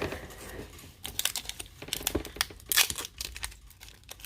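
Foil Pokémon booster pack wrappers crinkling with quick crackles as they are handled.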